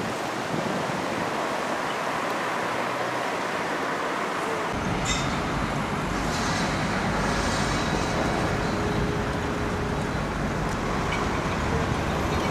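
Outdoor city street ambience: a steady hiss that turns abruptly, about five seconds in, into a fuller low rumble of passing road traffic.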